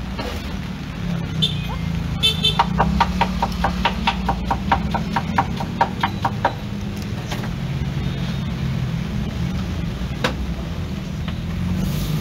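A rapid run of metallic clinks from a metal cooking utensil striking cookware, about five a second for some four seconds starting about two seconds in, over a steady low hum.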